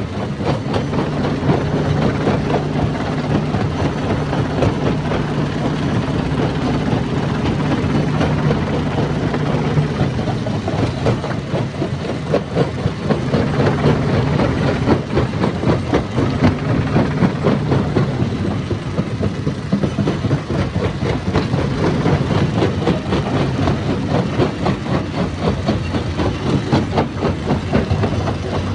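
Stone crusher running: a steady heavy engine hum under a dense, continuous rattle and clatter of rock being broken and shaken through the machine.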